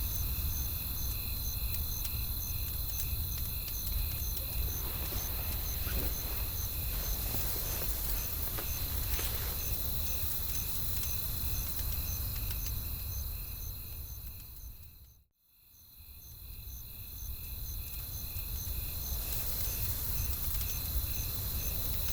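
Night-time nature ambience: crickets chirping in an even pulse, about two chirps a second, over a low wind rumble with faint crackles from a wood fire. About fifteen seconds in, the whole bed fades out to silence, then fades back in.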